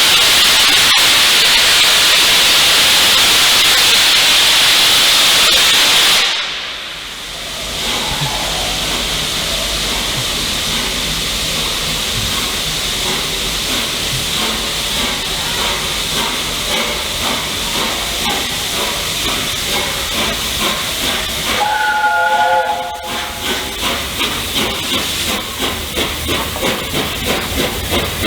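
Steam locomotive 60163 Tornado, a three-cylinder Peppercorn A1 Pacific, giving off a loud steady hiss of steam that stops abruptly about six seconds in, then a softer hiss. About 22 seconds in comes a short chord-like whistle blast, followed by regular exhaust beats that quicken as the engine gets under way.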